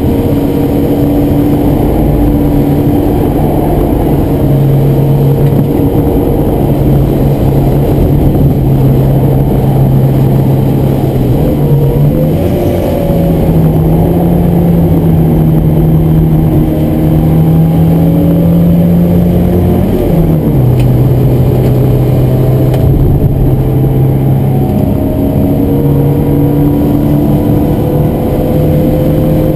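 Ford Escort Mk1 1100's small four-cylinder engine, heard from inside the cabin while driven hard on track. The engine note rises and falls with throttle and gear changes, jumping up about twelve seconds in and dropping sharply about two-thirds of the way through, over steady road and wind noise.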